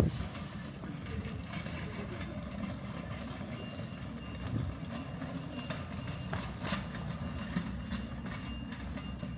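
Steady low rumble of city street ambience, with light, irregular footsteps of someone walking.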